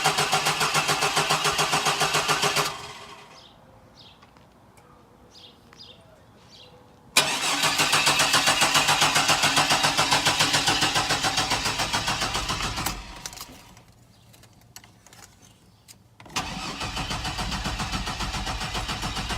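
1999 Chevy Blazer's 4.3-litre V6 cranked over by the starter in three goes of a few seconds each, with short pauses between. It turns over in an even rhythm but does not catch: a crank-no-start, with fuel delivery in question.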